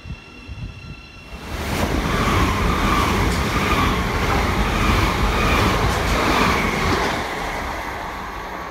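Electric multiple-unit train running along the platform: a loud rush of wheels on rail and air that builds about a second and a half in, holds with a faint whine, and fades near the end.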